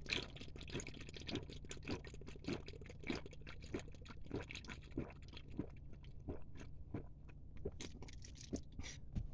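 A person gulping an energy drink straight from a can, swallowing in a steady rhythm of roughly one gulp every half second or so.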